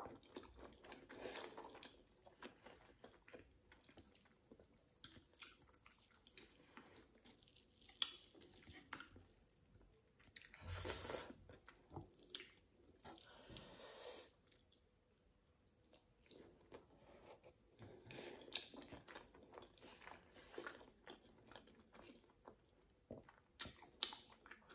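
Quiet chewing and wet mouth sounds of a person eating grilled meat and pap, with small clicks scattered throughout. There is a louder stretch of chewing about eleven seconds in.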